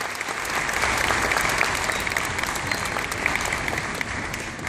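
Audience applauding, the clapping swelling about a second in and then slowly tapering off.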